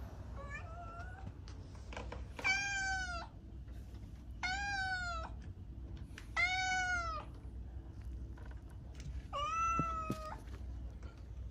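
A cat meowing: four drawn-out meows about two seconds apart, each under a second long, after a fainter, shorter call near the start. A low steady hum runs underneath.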